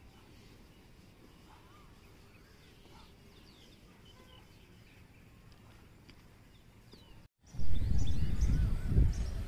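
Faint birds chirping over a quiet outdoor background. About seven seconds in, after a split-second gap, loud irregular wind buffeting on the microphone starts, with the birds still chirping above it.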